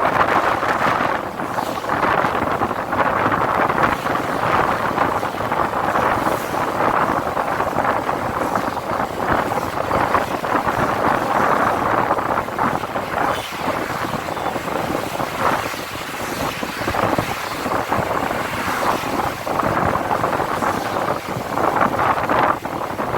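Steady rushing noise of wind on the microphone mixed with road traffic, with small irregular gusts and flickers.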